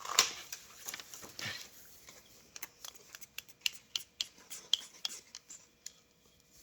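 Paper and cardboard being handled and snipped with scissors: scattered small clicks and rustles, loudest in the first second and a half, then fainter and sparser.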